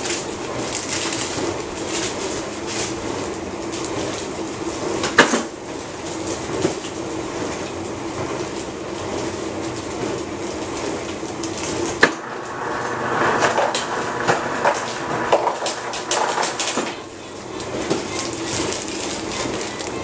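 Kitchen clatter over a steady hum: a sharp knock about five seconds in and another about twelve seconds in, then a stretch of rustling and clicking as ice is worked in a plastic zip-top bag.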